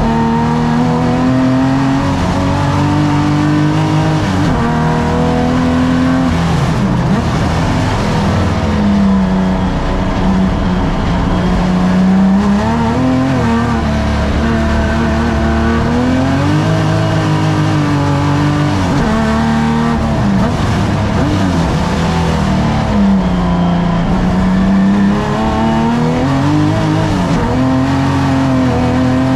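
Pre-1965 saloon race car's engine running hard on track, heard from inside the cockpit: the revs climb repeatedly and drop away sharply with gear changes and braking.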